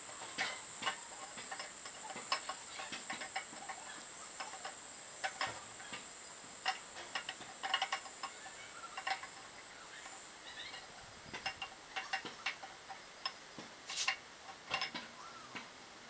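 Irregular light metallic clicks and taps as the camshaft of an L76 6.0 LS V8 is turned and eased out of the engine block by hand, worked on a bolt threaded into its nose.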